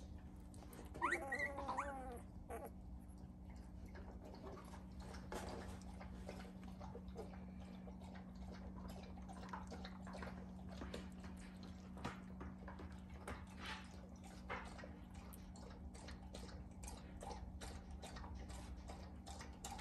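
Two-week-old puppies whimpering: a brief wavering whimper about a second in, the loudest sound, then faint squeaks and small clicking sounds as the litter sleeps. A steady low hum lies underneath.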